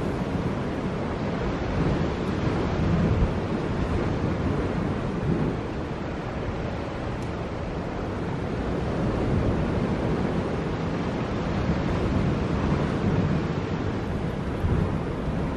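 Wind on the microphone over waves washing against shore rocks: a steady rushing noise.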